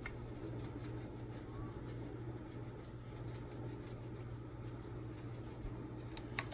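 Steady low background hum with faint hiss and no distinct events.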